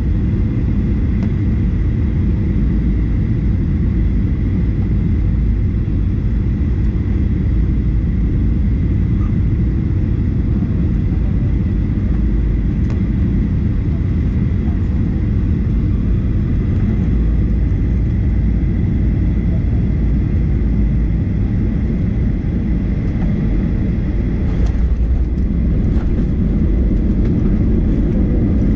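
Boeing 737-800 cabin noise: the steady low rumble of the engines and airflow, with a faint steady high whine.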